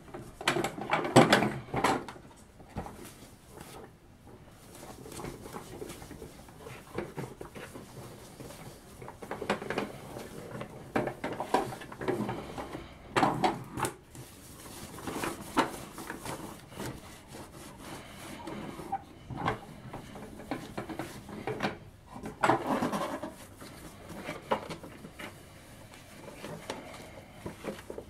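Paper towel rubbing and wiping over the hard plastic body of a toy vehicle, buffing on the final clean-and-shine polish, in uneven bouts with short pauses and light handling knocks.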